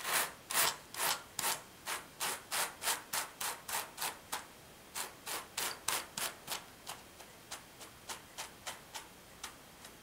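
Wooden spinning wheel turning, making a rhythmic rubbing swish about two to three times a second that slows and grows fainter in the second half.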